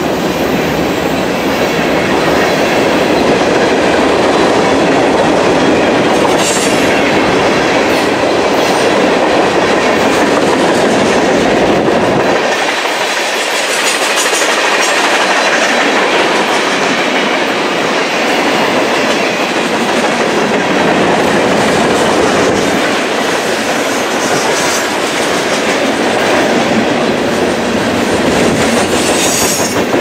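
Freight train of covered hoppers and tank cars rolling past close by: steel wheels on rail making a loud, steady rolling noise. The deep rumble drops away about twelve seconds in, and the lighter rolling hiss goes on.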